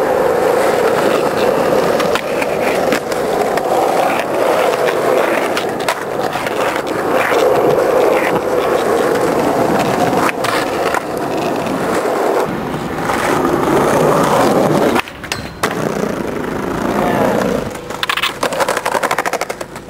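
Skateboard wheels rolling over smooth concrete, with sharp knocks of the board hitting the ground now and then. The rolling stops suddenly about fifteen seconds in, and the last few seconds hold a run of board knocks and clatter.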